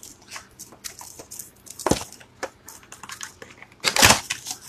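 Foil trading-card booster pack wrapper crinkling and crackling in the hands as it is worked open, with a sharp crackle about two seconds in and the loudest rip near the end.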